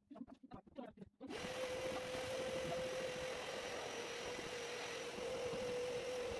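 Red canister vacuum cleaner switched on a little over a second in, then running steadily with an even motor hum.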